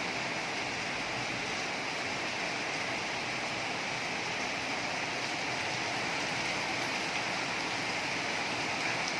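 Heavy rain pouring down as a steady, even hiss.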